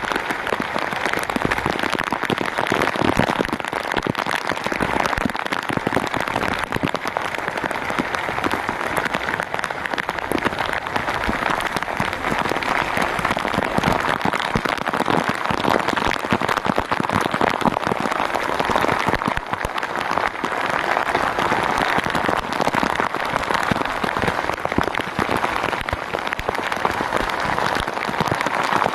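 Steady rain falling on a small outrigger fishing boat and the sea around it: a loud, even, crackling hiss that never lets up.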